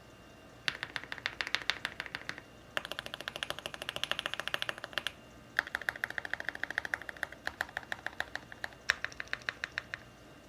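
Typing on a custom mechanical keyboard built with lubed Everglide Aqua King linear switches, a polycarbonate plate, full foam and aluminium keycaps. Four bursts of fast keystrokes, separated by short pauses.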